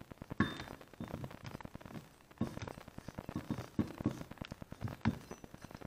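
Hands working the metal joint parts and rubber boot of a driveshaft: a dense run of small clicks, taps and rubbing, with a few louder knocks.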